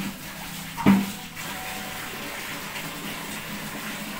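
Water running steadily from a tap into a plastic bucket, with one sharp knock about a second in.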